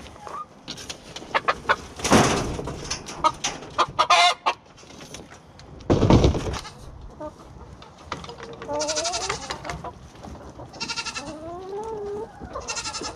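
Chickens calling repeatedly, starting about eight seconds in. Before that come scattered knocks and two loud rustling handling noises.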